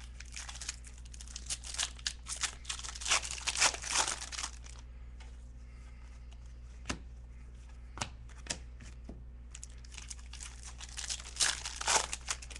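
Basketball trading cards handled and slid against one another, papery rustling and scraping in quick strokes, with a few sharp clicks in a quieter stretch around the middle before the rustling picks up again near the end.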